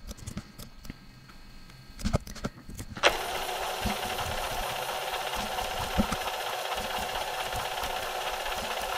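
A few faint clicks, then a steady machine-like hum and hiss switches on suddenly about three seconds in and runs on evenly.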